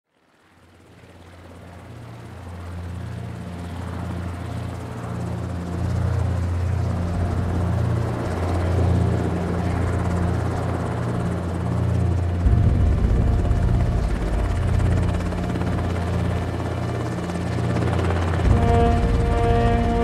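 Helicopter rotor noise, a steady low pulsing drone that fades in from silence over the first few seconds and grows louder, deepening about halfway through. Musical notes come in near the end.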